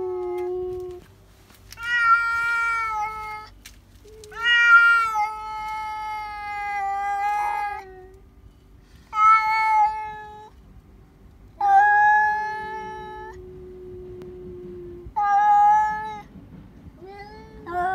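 Domestic cat yowling: about six long, drawn-out calls in a row, each held at a fairly steady pitch with a slight fall at the end. This is the caterwauling a house cat makes on spotting a strange cat outside.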